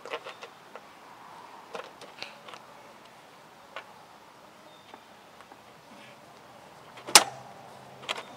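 Scattered clicks and knocks of hand tools and metal parts being handled, with one loud, sharp metallic strike about seven seconds in and another knock just after eight.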